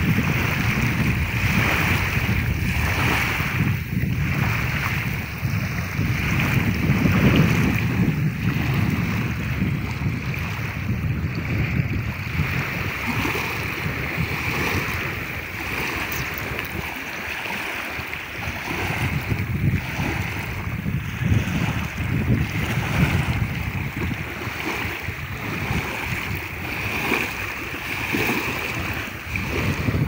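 Small wind-driven waves lapping and splashing on a stony lake shore, rising and falling unevenly, with wind rumbling on the microphone.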